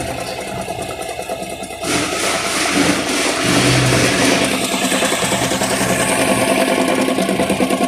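Opel Omega A engine running with a rapid rhythmic knocking from the clutch housing, which the owner takes for a failing dual-mass flywheel. It gets louder about two seconds in.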